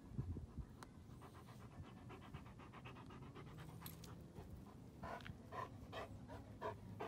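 Large 90-pound dog panting: quick, faint breaths at first, then stronger breaths about two a second near the end.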